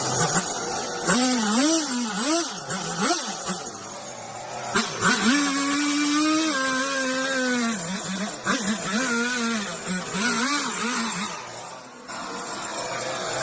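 A handheld power tool running while it cuts wood, its motor pitch rising and falling repeatedly with the load.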